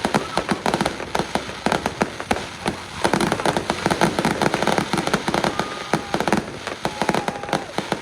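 Fireworks display going off in a rapid, dense volley: many sharp bangs and crackles a second with no pause.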